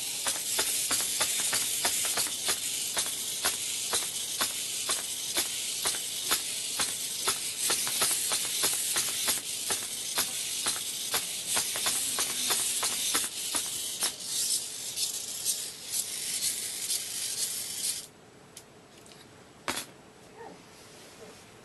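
A three-servo hexapod robot walking: its small hobby servos give a steady high-pitched whine, and its plastic legs tap on the board about three times a second. The servos cut off suddenly near the end, followed by a single click.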